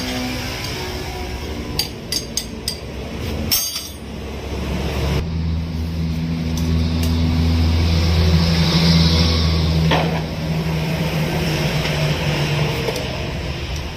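A metal rod clinks against a motorcycle engine's aluminium crankcase several times, then a motor vehicle's engine runs with a steady low hum that swells and fades away.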